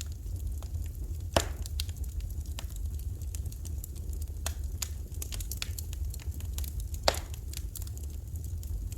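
Wood fire in a fireplace crackling: scattered small snaps, with two louder pops about a second and a half in and about seven seconds in, over a steady low rumble.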